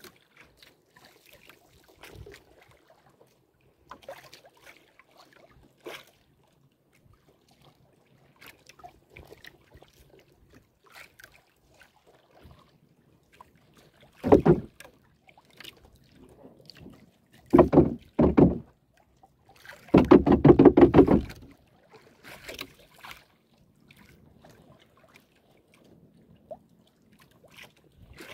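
Small outrigger canoe being paddled with a wooden paddle: soft paddle strokes and scattered light clicks. There are a few loud knocks about halfway through, then a longer rattling burst lasting over a second.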